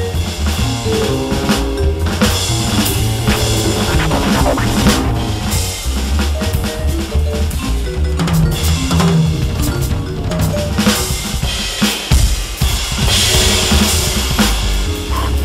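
A Roland V-Drums electronic drum kit played in a jazz four-beat swing pattern, with bass drum, snare and rimshot hits. It plays along with a backing sequenced on a Maschine Studio that carries a bass line and sustained notes.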